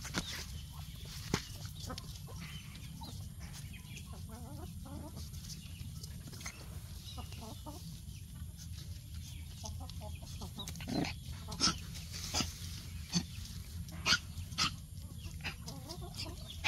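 Short, scattered animal calls over a steady low hum, with a few clicks; the calls come more often from about eleven seconds in.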